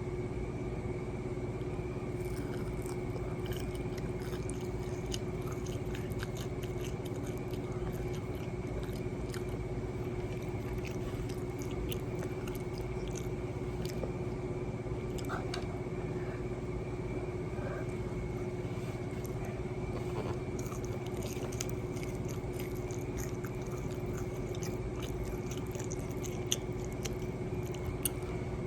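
Close-miked chewing and biting while eating chicken tenders and fries: many small crunchy clicks and wet mouth sounds, over a steady background hum.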